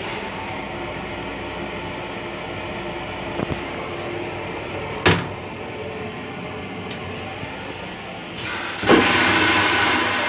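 Steady rumble of an M9 railcar running, with a sharp knock about halfway through. Near the end a loud rushing hiss starts, the restroom toilet flushing.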